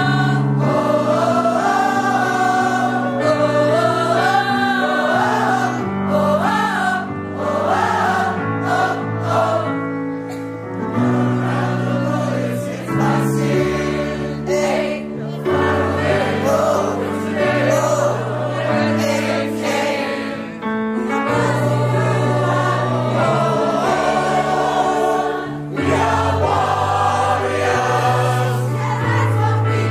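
A large mixed choir of women and men singing a song together, with held low notes changing every second or two beneath the melody.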